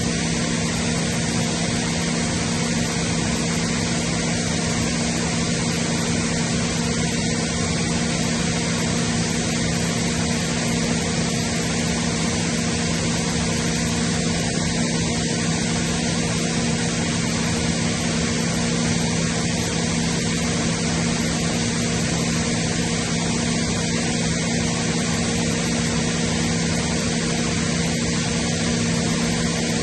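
Atlas Copco GA90VSD FF oil-injected rotary screw air compressor running steadily: a constant low hum with a few fixed tones over an even hiss, without change.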